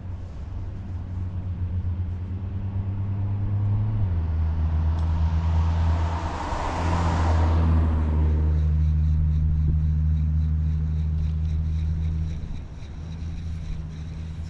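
A motor vehicle's engine running steadily with a low hum that shifts pitch and grows louder about four seconds in, then eases near the end. A rushing sound swells and fades midway, like a vehicle going past.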